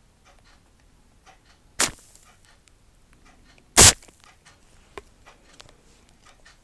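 Close-miked ASMR trigger sounds: two loud sharp snaps about two seconds apart, among many faint small clicks and taps.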